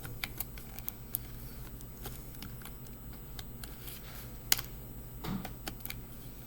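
Scattered light clicks and taps of fingers working a laptop's plastic case and battery, with one sharper click about four and a half seconds in.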